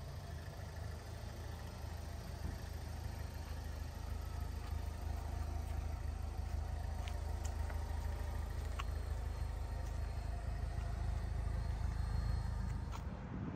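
2008 Pontiac Solstice GXP's turbocharged 2.0-litre four-cylinder engine idling steadily.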